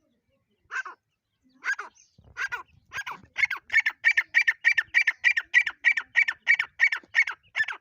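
Black francolin calling: a run of short call notes that starts at about one a second and quickens to about three a second.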